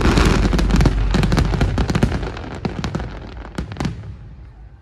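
Fireworks going off: a dense barrage of bangs and crackling, thinning to scattered single bangs that fade away toward the end.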